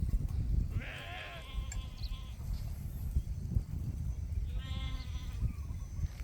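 Sheep bleating twice, a longer call about a second in and a shorter one about four and a half seconds in, over a steady low rumble.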